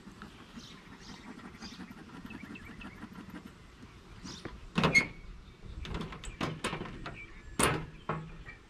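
Wooden beehive frames and box being worked open: a faint quiet stretch, then from about halfway a run of sharp knocks and scrapes of wood on wood, two of them loudest.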